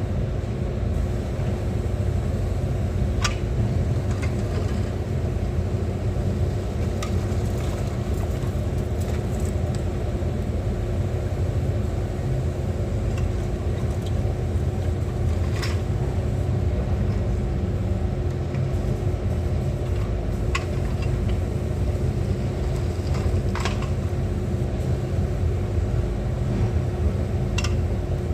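A motor running steadily, a low rumble with a constant hum, with a few sharp clicks or knocks now and then.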